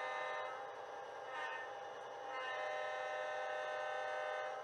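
HO scale model diesel locomotive's sound decoder blowing a multi-chime air horn: one blast trailing off about a second in, then a second, longer blast of about two seconds.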